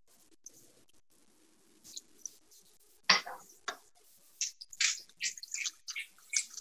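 Potato slices frying in hot oil in a skillet, the oil crackling and popping irregularly, with one louder sharp crack about three seconds in.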